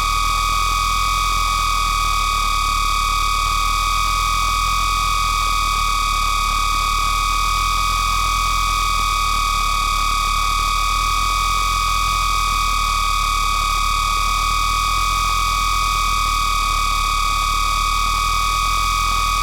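Distorted radio-signal static: a steady electronic buzz with a strong whine held on one pitch, fainter higher tones and hiss over a low hum, not changing in level or pitch.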